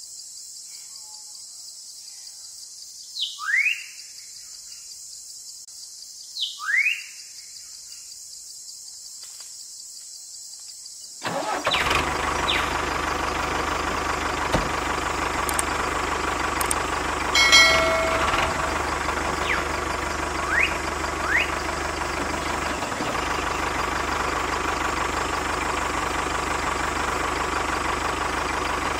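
Quiet outdoor ambience with a high insect hiss and two rising bird chirps, then about eleven seconds in a steady engine-like running sound cuts in abruptly and continues at an even level, with a few more rising chirps over it.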